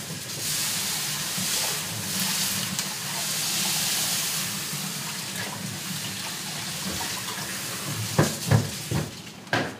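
Water running from a kitchen tap over the outside of a saucepan of toffee just off the heat at hard-crack temperature, cooling the pan quickly. It is a steady hiss that fades after about seven seconds, followed by a few knocks near the end.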